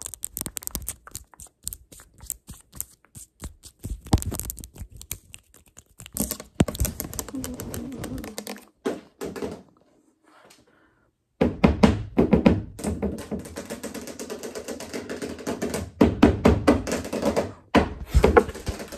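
Fast, irregular tapping and clicking from long acrylic fingernails, with a short break about ten seconds in, after which the tapping comes thicker and faster.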